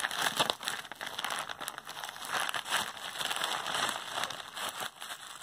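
Plastic courier mailer bag crinkling and crackling as hands pull at it and tear it open.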